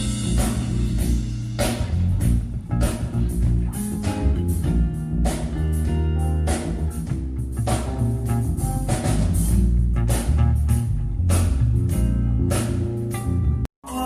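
Rock-blues band music with electric guitar, bass and a drum kit keeping a steady beat. It cuts out suddenly near the end.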